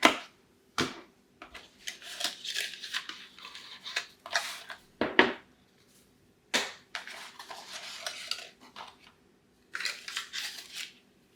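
Doorbell kit being unpacked by hand: plastic and paper packaging crinkling and rustling, with several sharp clicks and knocks as parts are handled.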